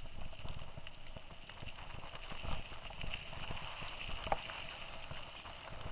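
Mountain bike rattling and clattering over a rough dirt trail: a constant run of small knocks from the bike and its mount with a low rumble of tyres on the ground, and two harder knocks over bumps, about two and a half and four and a half seconds in.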